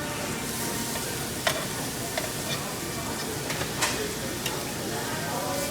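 Food sizzling steadily on a tabletop barbecue grill, with several sharp clinks of utensils and tableware.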